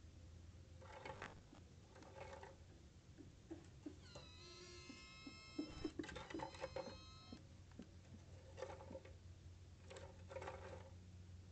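A drawn-out, high whining animal call lasting about three seconds, roughly a third of the way in, among a few faint soft rustles.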